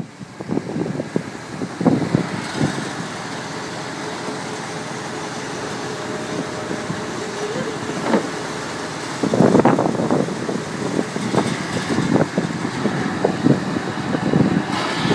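Fishing boat's engine running steadily under way, with gusts of wind buffeting the microphone, strongest from about the middle on.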